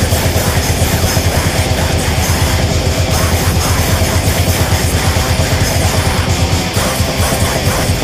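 A heavy metal band recording playing, a loud and dense wall of sound with rapid pulsing and no breaks.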